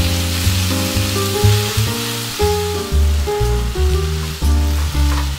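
Sliced bitter melon and pork sizzling as they are stir-fried in a frying pan, under jazz background music whose bass line steps from note to note about twice a second and is louder than the frying.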